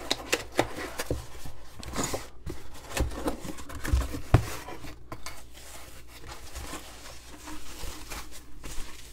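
A cardboard shipping box being handled and opened, with irregular scrapes, taps and rustles of cardboard and a sharper knock about four seconds in. Near the end comes the rustle of foam packing wrap as the wrapped rifle stock is lifted out.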